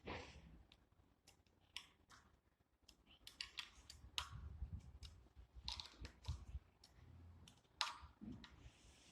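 Faint, irregular clicks and light knocks of hand tools and small metal parts being handled while the handlebar stem's screws are loosened and the headset is taken apart.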